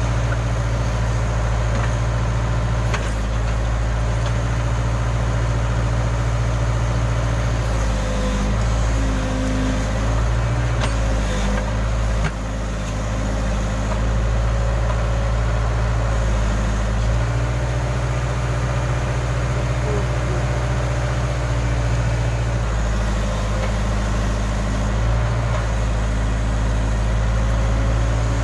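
Case backhoe loader's diesel engine running steadily with a hydraulic whine, its note shifting a few times as the hydraulics take load during digging, with a few brief knocks.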